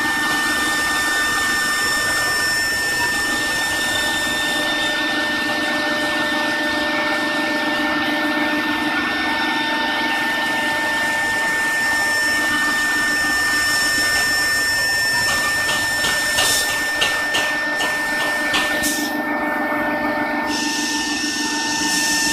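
CNC router spindle motor running with a steady high-pitched whine over a hiss of air and machining noise. A quick run of clicks and knocks comes about three-quarters of the way through.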